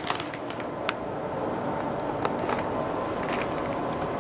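Foil-lined freeze-dried meal pouch crinkling and rustling steadily as a hand rummages inside it, with a few sharper crackles.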